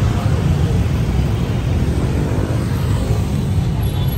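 Dense motorbike and scooter traffic streaming past close by: a steady, loud rumble of many small engines.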